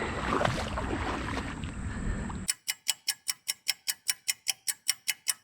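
Steady outdoor creek ambience, then about halfway through it cuts to a rapid ticking-clock sound effect, about five sharp ticks a second over dead silence.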